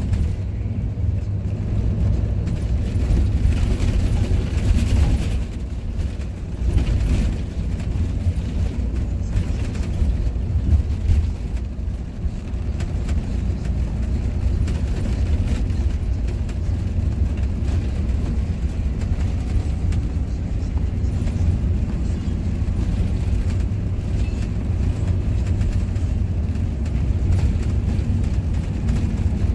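Intercity bus under way, heard from inside the cabin: a steady low rumble of engine and road noise.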